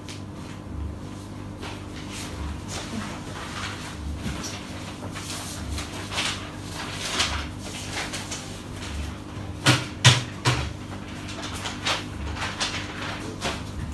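Sheets of paper rustling and being handled as worksheets are passed out, with two sharp knocks just under ten seconds in, over a steady low hum and a soft low thud about once a second.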